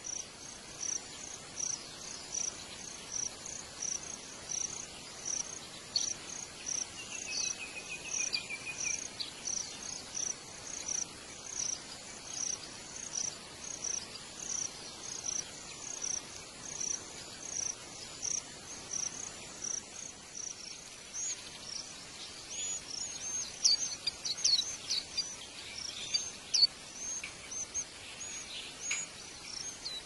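A high, even chirp repeating a little under twice a second, typical of a calling cricket. About two-thirds of the way through, a busier run of quick, high bird chirps from white-eyes at the nest takes over and grows louder.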